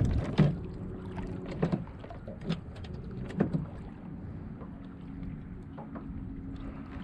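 Scattered light knocks and taps on a small fishing boat, a few in the first half, over a faint steady hum and the low rumble of wind and water.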